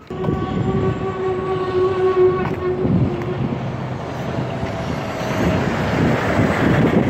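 A horn sounds on one steady pitch for about two seconds, starting suddenly, with a fainter tone after it. Traffic noise then grows louder toward the end as trucks come near.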